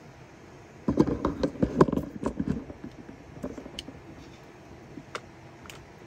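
Handling noise on a workbench: a quick flurry of clicks and rustles starting about a second in, then scattered single clicks.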